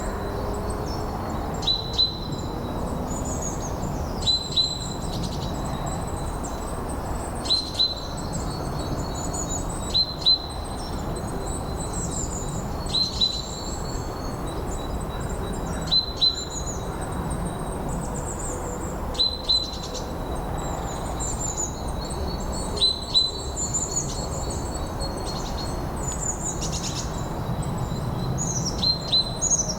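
Birds calling: one bird gives a short sharp call again and again, every two to three seconds and often twice in quick succession, while others twitter higher up. Underneath is a steady low rush of wind.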